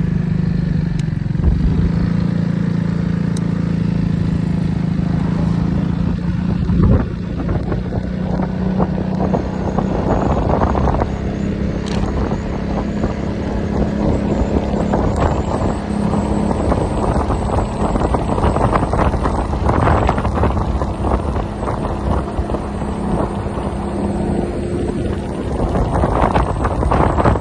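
Piaggio MP3 three-wheeled scooter's engine humming steadily on the move, with wind buffeting the microphone in gusts.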